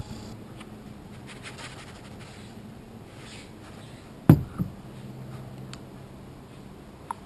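Quiet handling of plastic gold-panning gear over a tub of muddy water, with one sharp plastic knock a little past the middle and a smaller knock just after it, and a small tick near the end.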